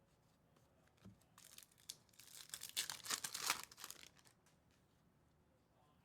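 A foil trading-card pack wrapper being torn open and crinkled, a crackly rustle that starts about a second in, peaks in the middle and dies away after about four seconds.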